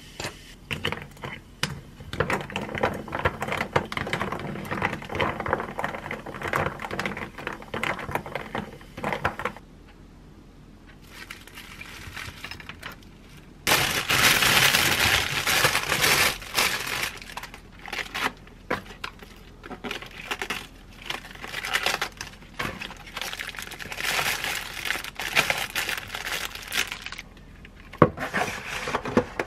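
Kitchen handling sounds: plastic crinkling and lettuce leaves rustling as they are pulled apart and dropped into a plastic bowl. There is a louder stretch of steady rushing noise for a few seconds past the middle.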